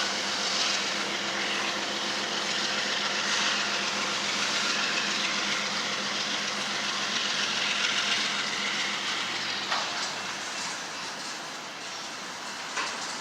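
CSX intermodal freight train rolling past: a steady rumble and rattle of wheels on rail, with a couple of sharp clacks in the last few seconds as it grows slightly quieter.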